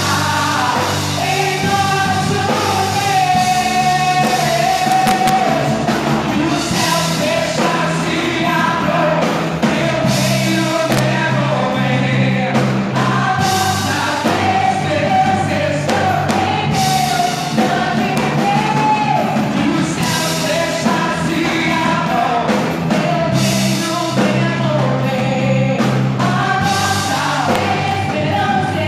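Live Christian worship band playing a song, with a singer holding long melodic notes over the band and cymbal crashes every few seconds.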